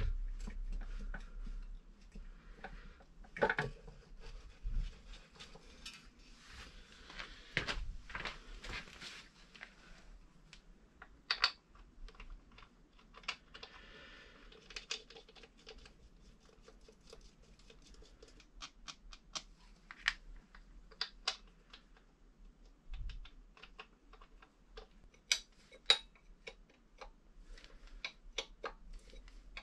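Irregular small clicks and metallic taps from hand tools and metal parts being handled on the trench rammer's foot and bellows-boot assembly, with a few duller knocks in the first several seconds.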